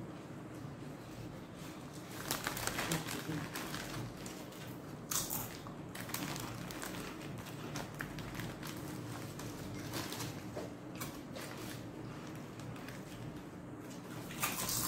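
Paper sandwich wrappers and a plastic chip bag crinkling as they are handled during eating, in irregular bursts that are loudest about two to three seconds in and again around five seconds in.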